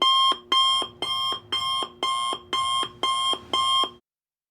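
Electronic alarm beeping, about two even beeps a second, each the same pitched tone. It stops suddenly about four seconds in.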